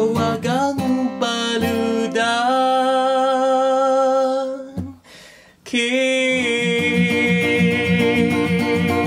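Steel-string acoustic guitar strummed and picked, moving through a few chords and then letting long notes ring with a slight waver. The sound breaks off briefly about five seconds in, and a fresh strummed chord rings on after it.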